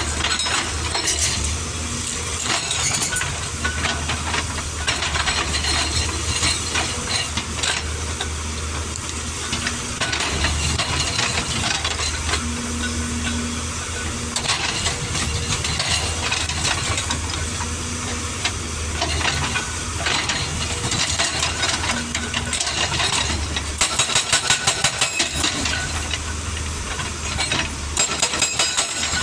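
A 22-ton Case CX220 excavator's diesel engine running steadily while its hydraulic rock breaker chatters against rock. A fast, loud run of hammer blows comes about two thirds of the way through, and another near the end.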